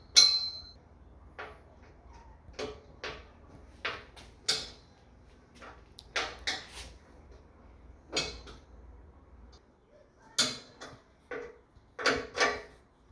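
Scattered knocks and clinks of treadmill parts and hand tools being handled during assembly, the loudest a sharp clink with a short ring right at the start. A low hum underneath stops about two-thirds of the way through.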